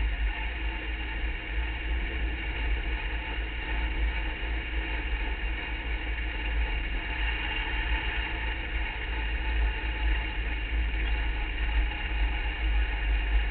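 Open-wheel hill-climb race car running at speed on a gravel road, heard from an onboard camera: steady engine sound over a heavy low rumble of road and wind noise.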